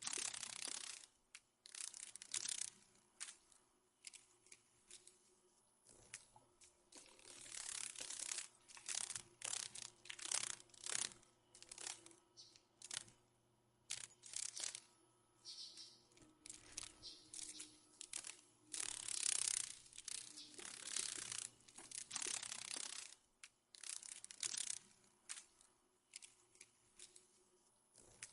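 Dry, rasping crackle in irregular bursts of a second or two, some louder than others, like the papery rattle of dragonfly wings.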